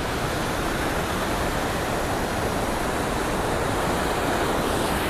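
Steady rush of river water pouring over a concrete low-head dam.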